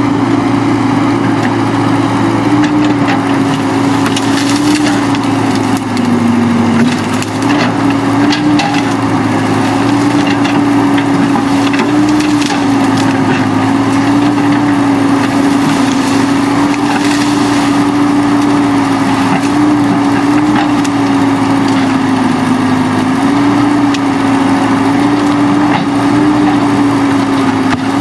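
Heavy-equipment engine running steadily, its pitch dipping and rising slightly as the load changes, with scattered sharp clicks and scrapes over it.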